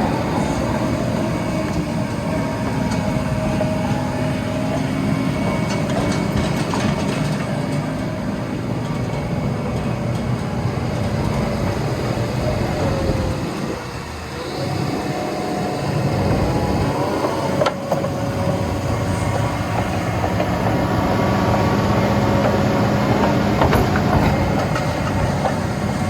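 Vögele Super 1800-3i asphalt paver running: a steady diesel engine noise with a mechanical clatter and tones that shift in pitch, dipping briefly about halfway through.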